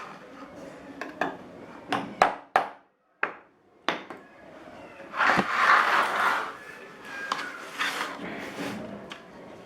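Workshop handling sounds: a series of sharp knocks and clatter of wood and tools in the first few seconds, then a rasping rub lasting about a second and a half midway, followed by lighter knocks.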